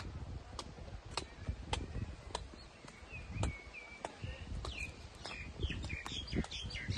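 Footsteps clicking on a paved path at an even walking pace, about two steps a second, with small birds chirping, more busily in the second half. A low rumble of wind on the microphone runs underneath.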